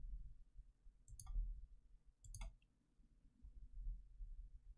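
Two faint computer mouse clicks, a little over a second apart, over a low background hum.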